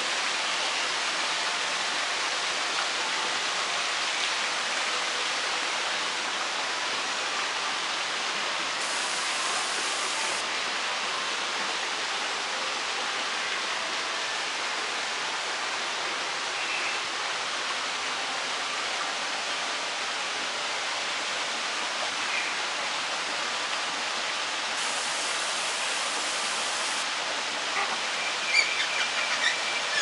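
Steady, even rushing noise throughout. A few faint short chirps come about halfway, and sharper chirps come near the end.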